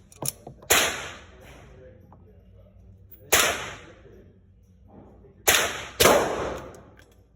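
Glock 19X 9mm pistol fired four times at a slow, uneven pace: one shot about a second in, another past the middle, then two close together near the end, each report trailing off in a short echo. A few quieter clicks come just before the first shot.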